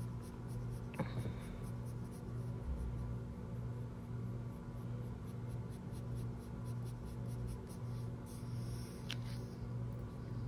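Dixon Ticonderoga graphite pencil scratching on paper in quick short strokes, about four a second, as hair-like marks are hatched in.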